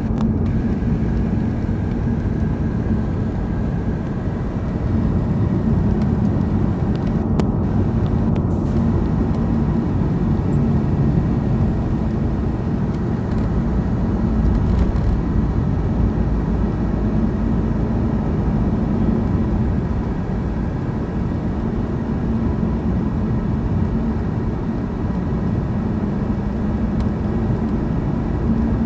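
Steady road and engine noise heard inside a moving car's cabin, with a constant low hum and a couple of light clicks about seven to eight seconds in.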